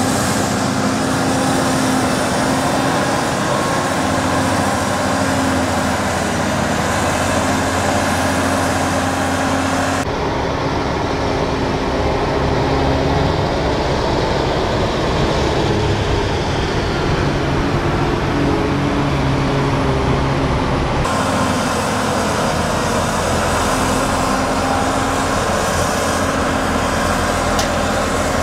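Heavy diesel engine of a Cat wheel loader running steadily under load while pushing and compacting maize silage on the clamp. About ten seconds in, the sound turns duller with more low rumble, and about eleven seconds later it goes back to the brighter engine drone.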